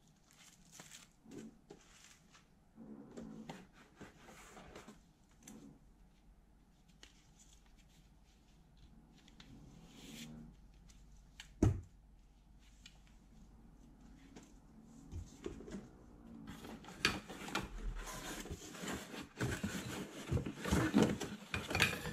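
Handling noise from unpacking metal detector parts: plastic bags rustling and hard plastic parts clicking and knocking. There is one sharp knock about halfway through, and a busier run of clatter and rustling over the last five seconds as the shaft and control box are handled.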